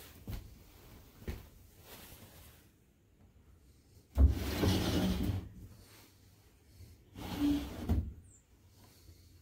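Paper-covered wooden sliding door sliding open in its track, a sudden rumbling scrape of about a second, with a second, shorter rubbing sound about three seconds later. A couple of faint knocks come early on.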